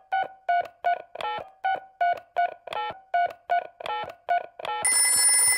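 Telephone keypad beeps, about three a second, as a number is dialled on a cordless phone. Near the end comes about a second of a louder buzzing ring as the call goes through.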